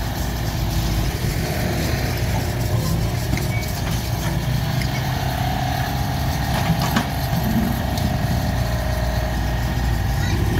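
Diesel engine running steadily as a mini excavator digs and swings loads of soil into a dump truck, with a single knock about seven seconds in.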